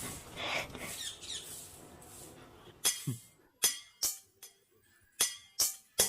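A fading hissing noise, then a string of sharp clinks with short ringing tones, about seven of them, separated by brief quiet.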